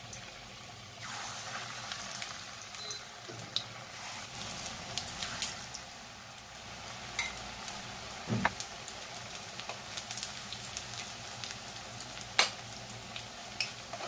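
Onion pakoras (gram-flour fritter batter) deep-frying in smoking-hot oil in a kadai: a steady sizzle that picks up about a second in, with scattered crackles and a sharp pop near the end.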